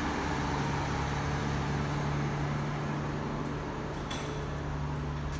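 Steady low machine hum with a constant drone, with a few short clicks about four seconds in.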